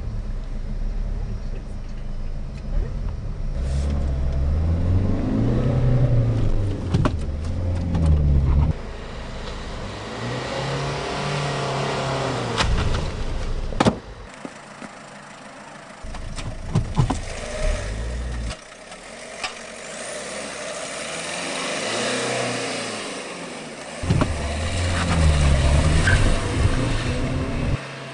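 Car engine revving and accelerating, rising in pitch about ten seconds in. The sound breaks off and changes abruptly several times, as separate clips are joined.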